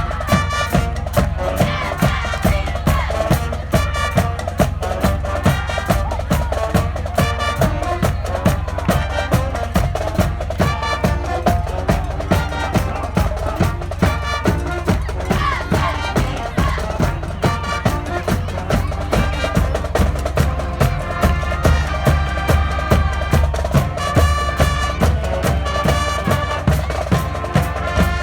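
Music with a steady beat of about two strikes a second over a continuous heavy bass.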